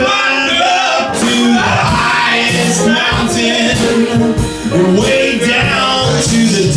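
Small jazz band playing live: horns over double bass and drum kit, with singing.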